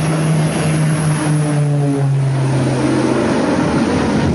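Twin-engine propeller airplane passing low and close, its engines droning. The engine tone drops in pitch about two seconds in and fades out a little later, over a steady rushing noise.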